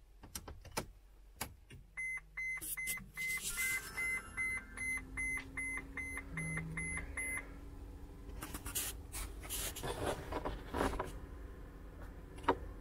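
A 2012 Mercedes Sprinter's dashboard warning chime beeping quickly and evenly, about two to three high beeps a second for some five seconds, with the ignition on and the engine not running. A few sharp clicks come before it, and scattered handling noises follow.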